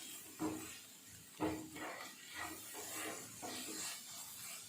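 Spatula knocking and scraping in a pan while tomato and spice masala is stirred and sautéed in oil, over a faint sizzle. The two loudest strokes come about half a second and a second and a half in, with lighter ones after.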